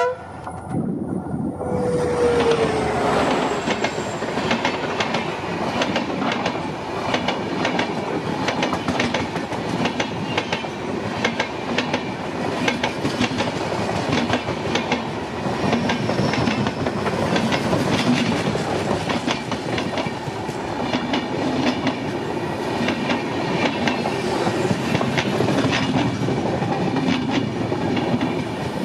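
WDP4D diesel locomotive passing close, with a brief falling tone about two seconds in, then a long express's coaches rolling by. The wheels give a steady rumble and a fast rhythmic clickety-clack over the rail joints.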